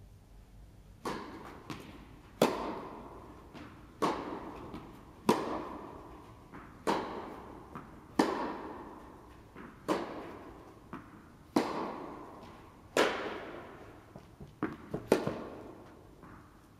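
Tennis rally in an indoor hall: about ten racket-on-ball strikes, each a sharp pop roughly every second and a half, with fainter ball bounces between them. Each one rings on in the hall's echo.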